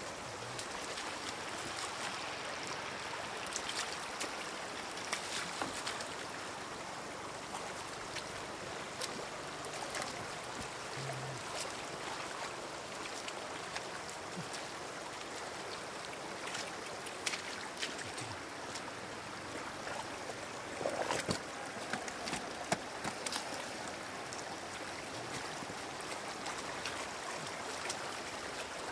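Shallow floodwater running steadily across a road, with scattered splashes and knocks as a bamboo plunge basket and hands work the water, busiest about two-thirds of the way through.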